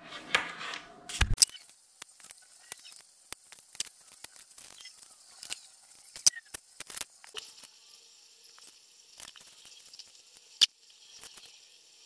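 Small clicks and rustling of thin insulated wires being handled and twisted together by hand for a splice, with a few sharper clicks. A faint steady hiss comes in past halfway.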